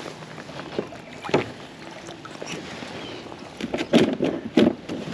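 Water sloshing around a fishing kayak, with a sharp knock about a second in and a cluster of louder knocks and splashes near the end.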